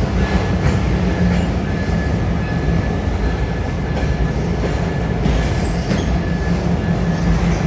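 Canadian National autorack freight train rolling past: a loud, steady rumble of wheels on the rails, with a thin, steady high squeal through most of it and a few short knocks.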